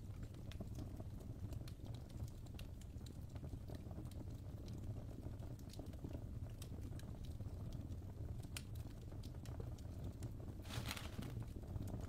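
Wood fire crackling in a fireplace: scattered sharp pops and snaps over a low steady rumble, with a brief louder burst of crackling near the end.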